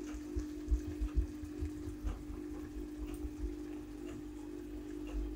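A steady hum, with a few soft, dull low bumps over the first three and a half seconds, typical of handling the plate and sauce bottle.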